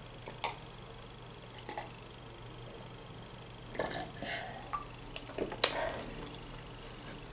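Quiet swallowing gulps and small mouth clicks while drinking from a glass, then a sharper clack about five and a half seconds in as the glass is set down on the table.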